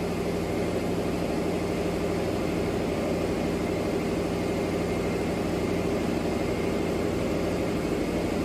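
Steady hum of running workshop machinery: a low drone with a couple of held tones, even throughout.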